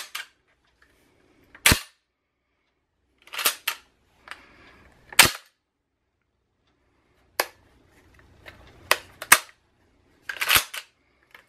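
A series of sharp metallic clacks, some in quick pairs, from a Remington 11-87 semi-automatic shotgun's action being worked by hand during reassembly, with faint handling rustle between them.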